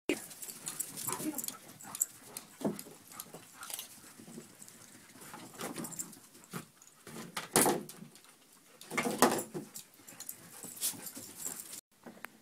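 A dog whimpering and whining in short, irregular bursts, with two louder cries in the second half.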